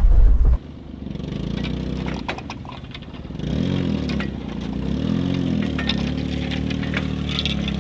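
Suzuki mini kei truck's small engine, loud for a moment inside the cab, then heard from outside driving slowly and revving up and back down twice as the truck pulls to stretch woven wire fence. There are a few light clanks and scrapes.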